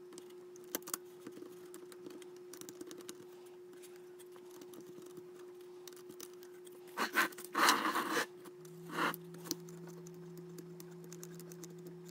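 Faint clicks and light scraping from hands handling the metal chassis and parts of a car cassette stereo, with louder rustling scrapes about seven to eight seconds in and again around nine seconds. A faint steady hum underneath.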